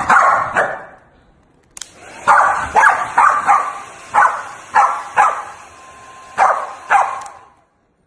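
A dog barking repeatedly in short, sharp barks, roughly one every half second. The barking cuts off abruptly near the end.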